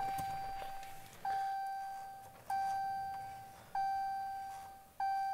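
Dodge Ram's dashboard warning chime dinging just after the ignition key is turned to run. Five single-tone dings about a second and a quarter apart, each fading out.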